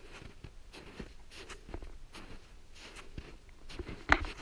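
Footsteps crunching in snow with trekking poles planting, a soft crunch at irregular intervals, and one sharp knock about four seconds in.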